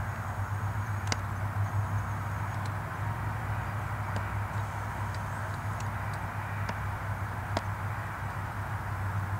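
Steady low hum of an idling vehicle engine, with a few light clicks and knocks.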